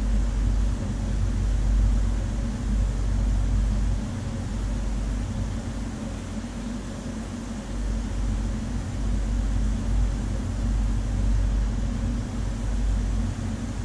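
Steady low electric hum over a hiss of moving water, typical of the pumps and filtration running on a large aquarium tank.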